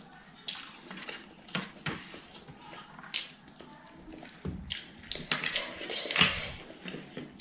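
Close-miked hand-eating sounds. Fingers mixing rice on a steel plate give light scattered clicks and squishes. Then, from about four and a half seconds in, a raw cabbage leaf being torn by hand gives a louder run of crisp crackles.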